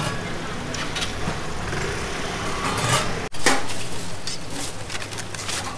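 Metal clatter at a clay pepper-bun oven: the iron lid is lifted off and a tool knocks and scrapes inside the oven, with scattered clicks over a steady low hum.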